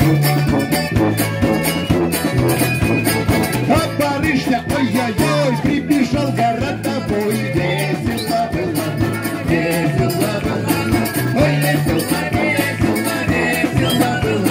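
Live folk band playing an upbeat tune, with a tuba bass line under fiddle, flute and a strummed mandolin-type instrument, and voices singing along.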